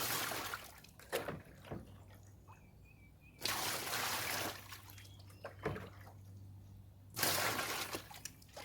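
Scoops of rainwater poured into a 32-gallon trash can, three pours each lasting about a second, with smaller splashes between them as more water is scooped from a wheelbarrow.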